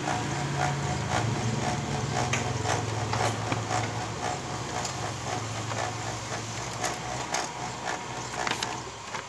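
Canon iR1024iF copier running a copy cycle: a steady motor hum with many mechanical clicks, stopping abruptly about nine seconds in.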